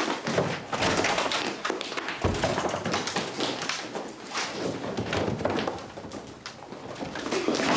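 Quick, irregular taps and thumps of footsteps hurrying across wooden floorboards.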